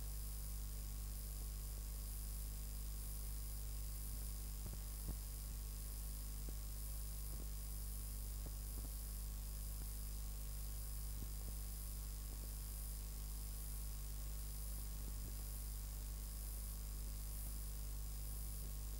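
Steady low electrical hum under an even hiss, with a couple of thin high whines: the noise floor of an old recording with no programme sound. A faint click about five seconds in.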